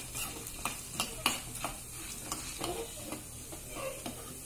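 A steel spoon stirring dried turkey berries (sundakkai vathal) frying in a little oil in a small stainless steel pan. It scrapes and clinks irregularly against the metal, more often in the first half, over a faint sizzle.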